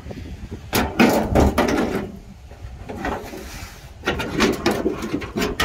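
Ford Mustang's sheet-metal front fender being worked free of the car body by hand, scraping and clunking in several rough bursts.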